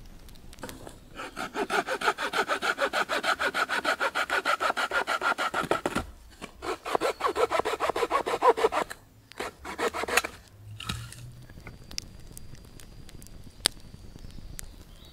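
Hand saw cutting a dry branch with quick, even back-and-forth strokes, pausing about six seconds in, then a few more bursts of strokes that stop about ten seconds in. One sharp snap comes near the end.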